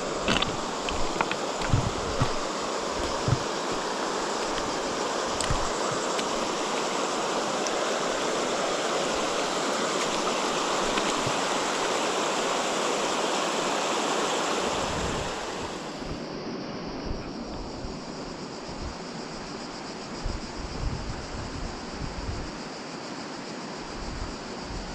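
River water rushing over a shallow stony riffle, a steady hiss, with low thumps of wind on the microphone. About fifteen seconds in, the rushing drops away to a quieter, duller wash of water.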